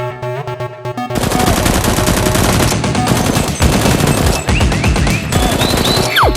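Rapid automatic gunfire, a dense run of shots starting about a second in and continuing, over background music. A steeply falling whistle comes near the end.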